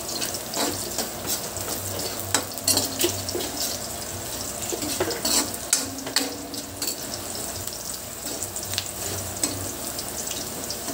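Sliced garlic sizzling in a little oil in a metal wok as it browns toward golden, stirred with a spatula that scrapes and taps against the pan every second or so.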